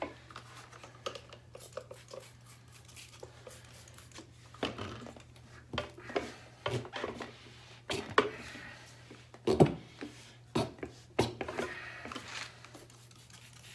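Tire irons clicking and knocking against a motorcycle wheel, with the rubber tire scraping and rubbing on the rim, in irregular strokes as the front tire is worked off. A few louder knocks come about two-thirds of the way through.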